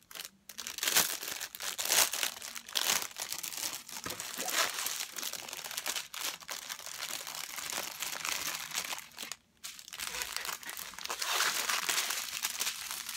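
Small plastic bags of diamond painting resin drills crinkling as they are picked up and handled, with a brief pause about nine and a half seconds in.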